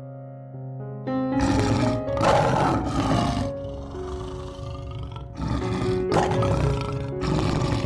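A large animal's call, given twice, each a long rough noisy call of about two seconds, over background music with held notes.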